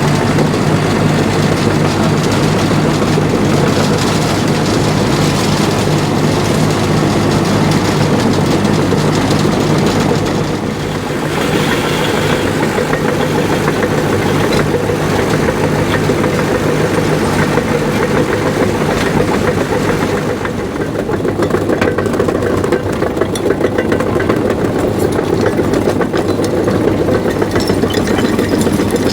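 Caterpillar D5 bulldozer's diesel engine running steadily under load while pushing dirt, easing briefly about eleven seconds in, with faint clanks in the second half.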